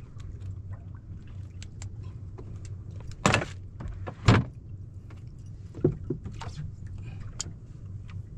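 Gear being handled in a small fishing boat: two loud knocks about a second apart midway, a lighter knock a couple of seconds later, and scattered light clicks and taps over a steady low hum.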